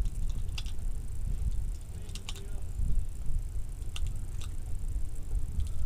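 Wind buffeting the microphone, with a few light metallic clicks as .22 LR cartridges are pressed into a rifle magazine.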